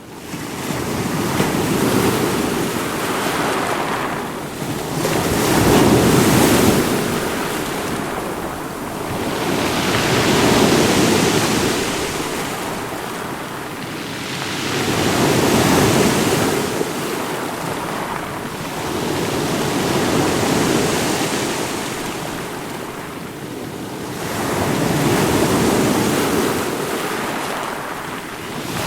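Ocean waves breaking over rocks, the surf rising to a crash and falling back in slow swells, about one every four to five seconds.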